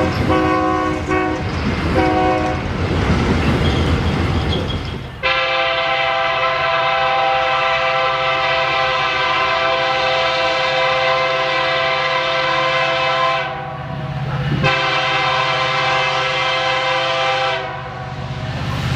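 Train horns sounding over the rumble of a train: a few short blasts, then a sudden change to a long, steady blast of several notes at once. That blast stops, and after a short gap a second, shorter blast follows.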